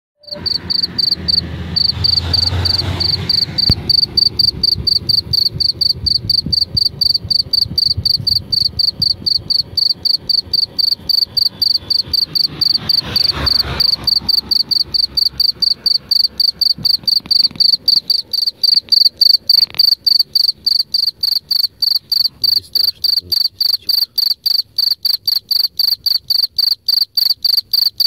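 Field cricket singing close by: a loud, steady run of short chirps at one high pitch, several a second.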